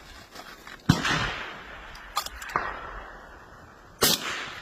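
Two rifle shots about three seconds apart, each a sharp crack followed by a long rolling echo. A few fainter sharp clicks fall between them.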